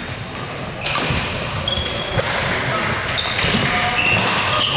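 Badminton play on a wooden sports-hall floor: short high squeaks of court shoes, footfalls, and sharp taps of rackets hitting the shuttlecock, echoing in the large hall.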